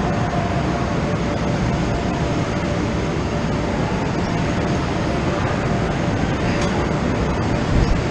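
Steady, loud machine noise of a mechanical bull ride in motion, with a low thump near the end.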